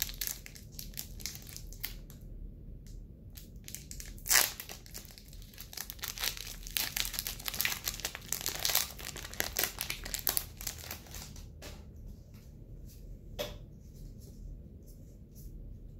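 Foil wrapper of a Pokémon booster pack being torn open and crinkled by hand, with a dense run of crackling and one loud sharp crackle about four seconds in. The crinkling thins out to a few scattered rustles after about eleven seconds.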